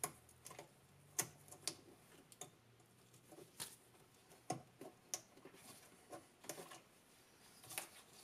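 Faint, irregular small clicks and ticks, about ten of them: small wire connectors being handled and fitted onto the terminals of a golf cart's forward/reverse switch.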